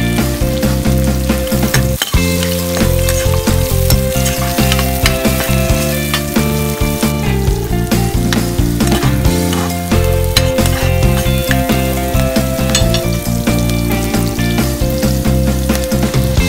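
Diced onion and garlic sautéing in oil in a wok, sizzling steadily with small crackles as a spatula stirs them.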